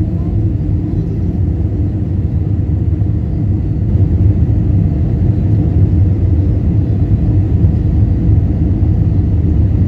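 Steady low rumble of a jet airliner's engines and airflow heard inside the passenger cabin on final approach to landing, growing a little louder about four seconds in.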